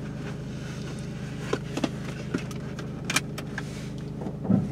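Steady low hum of a car running, heard from inside the cabin, with a few sharp clicks and rattles of small objects being handled, and a short low sound near the end.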